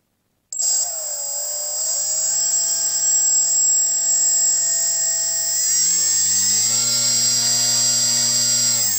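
Small brushless outrunner electric motor of a park-scale Pitts model biplane spinning its propeller. It starts abruptly about half a second in, steps up in speed twice, at about 2 and about 6 seconds in, and starts to wind down right at the end. A thin steady high whine sits above the motor's hum.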